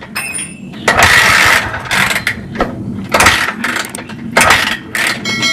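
A TVS XL 100 BS6 moped's kick-starter worked repeatedly, about once a second, cranking the fuel-injected single-cylinder engine without it catching. The injector is not spraying fuel, which the mechanic puts down to a weak battery.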